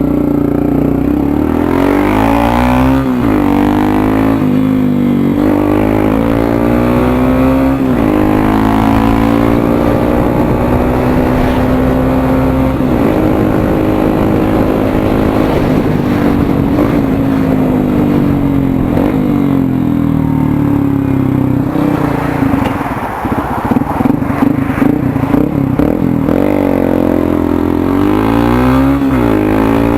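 Yamaha Crosser 150's single-cylinder four-stroke engine running through a Roncar aftermarket exhaust, revved up and down repeatedly with the pitch rising and falling over a few seconds at a time. About 23 seconds in it turns choppy and uneven for a few seconds, then revs up again near the end.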